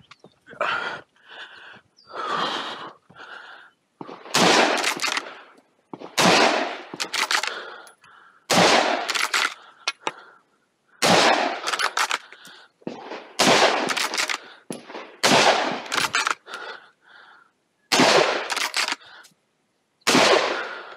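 A Ruger American Ranch bolt-action rifle in .223 firing a string of shots: loud sharp cracks about every two seconds, often two in quick succession, starting about four seconds in after a few quieter knocks.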